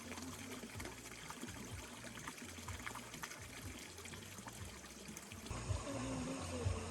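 Water running and trickling steadily, with small scattered splashes. About five and a half seconds in the sound changes abruptly and gets louder.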